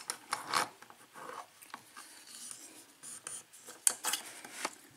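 Light metal scraping and small clicks from a hand tool working at an Ilco KIK lock cylinder clamped in a bench vise, with a few sharper clicks near the start and again near the end.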